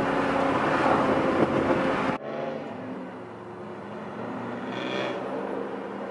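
BMW engine and loud aftermarket exhaust under way, heard from inside the cabin. About two seconds in it cuts to a quieter, steady engine hum of a car some way off. A brief high tone comes about five seconds in.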